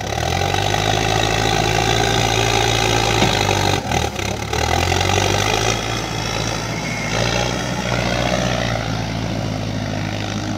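Mahindra EarthMaster SX Smart backhoe loader's diesel engine revving up sharply and running hard under load as the front bucket loads soil. There is a brief dip about four seconds in, then it runs on steadily.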